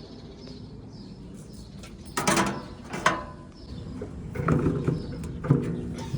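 Tool work on an air-conditioner condenser fan assembly during a fan blade replacement: two loud sharp metallic clatters about two and three seconds in, then two short rattling bursts near the end.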